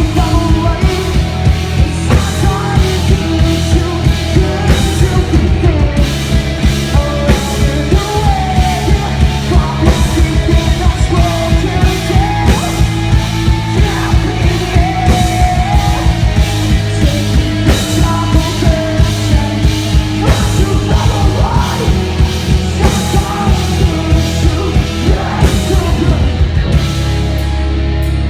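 Rock band playing loud, with pounding drums, guitars and a sung, partly shouted vocal. Near the end the drums stop and a held chord is left ringing.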